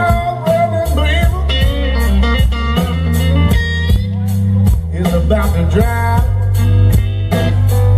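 Live blues band playing a slow blues: electric guitar soloing with bent notes over bass and drums.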